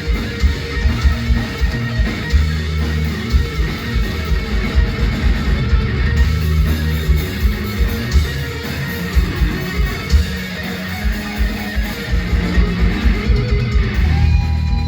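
Heavy metal played live: electric guitar over bass and drums, with a steady pounding beat throughout.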